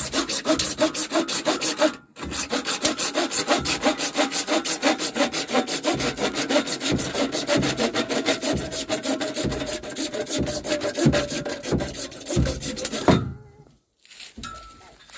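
Hand saw cutting in quick, even back-and-forth strokes, with a brief pause about two seconds in and the cut finishing near the end.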